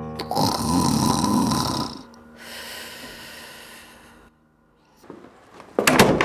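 An elderly woman snoring in her sleep: two long snores, the first louder than the second. After a short pause, a sudden loud burst of sound comes near the end.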